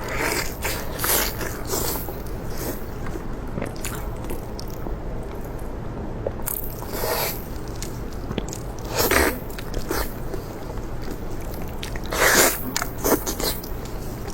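Close-up chewing and biting of crunchy food, with irregular crunches, the loudest about nine seconds in and again around twelve to thirteen seconds in.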